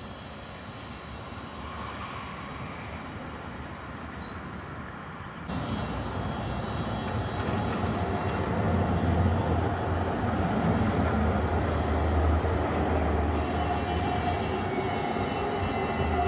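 NGT8D low-floor articulated tram with three-phase traction drive rolling past on its rails, with a low hum and a steady electric whine from the drive. The sound steps up suddenly about five and a half seconds in and stays loud as the tram passes close by.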